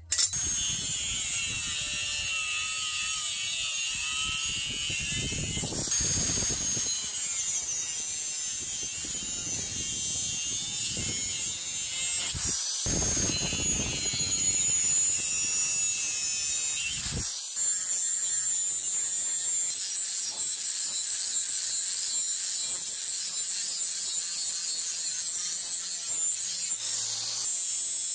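Electric angle grinder with an abrasive disc cutting and grinding a forged steel axe head: a steady high whine whose pitch shifts as the disc bites into the steel. It breaks off briefly twice, about 13 and 17 seconds in.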